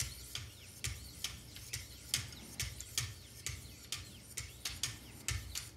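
Wicked Edge sharpening paddles with 1000-grit lapping film stroking alternately down both sides of a knife edge. Each stroke is a short light scrape with a click, with faint squeaks, in an even rhythm of about two to three strokes a second.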